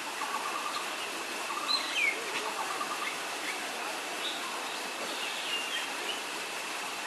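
Small birds chirping and trilling in the trees, with short rattling trills and gliding whistled notes, the loudest a falling whistle about two seconds in, over a steady thin high-pitched tone.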